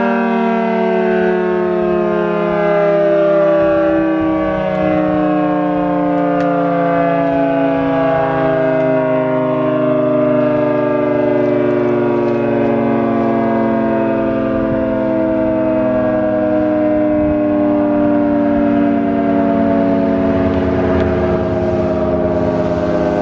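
Federal Signal 2T22 two-tone mechanical warning siren sounding its dual-tone chord loud and steady, the pitch falling slowly and evenly as the rotors slow down.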